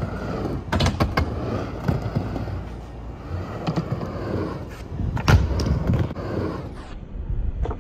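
Skateboard wheels rolling and rumbling across a smooth ramp surface, with sharp clacks of the board against the ground: a quick cluster about a second in and the loudest one just after five seconds, as a trick is popped and landed.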